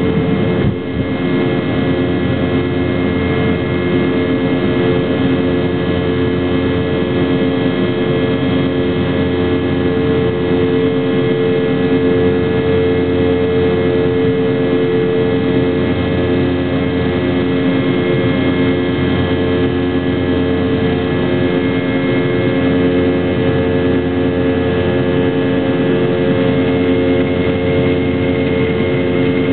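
Jet airliner cabin noise during the climb after takeoff: the engines at climb power give a steady drone with a few steady hums over a rushing air noise.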